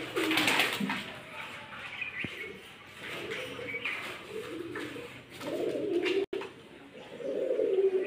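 Indian ringneck parakeet making soft, low murmuring chatter in short phrases while it nibbles at fingers. A louder, harsher sound comes in the first second.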